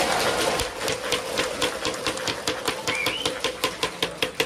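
A crowd of fans clapping in unison at a steady rhythm, about four claps a second.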